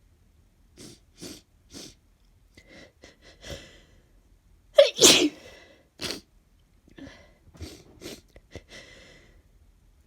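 A woman with a cold sneezing, one loud sneeze about five seconds in, with short breathy sounds before and after it.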